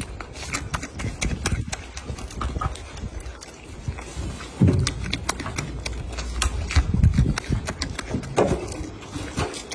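Golden snub-nosed monkey eating a red date up close: irregular sharp clicks and smacks of chewing, with a few dull low thumps from about halfway on.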